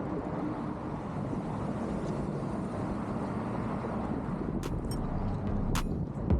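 Steady road rumble of traffic and inline-skate wheels rolling on asphalt, with a few sharp clicks about five to six seconds in.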